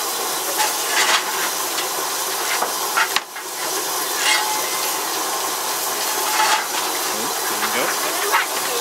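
Steady steam hiss on a steam locomotive's footplate, broken several times by the scrape and clink of a coal shovel as the fireman fires coal into the firebox.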